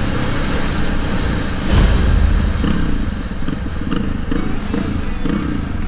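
Quad bike engine running under way on a dirt road, its pitch rising and falling with the throttle, with a low thump about two seconds in.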